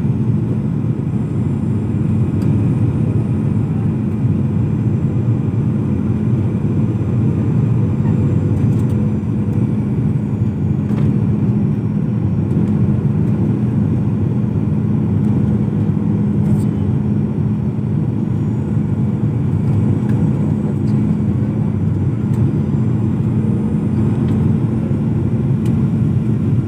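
Steady cabin noise of an airliner in flight: a constant low engine and airflow drone with a steady hum.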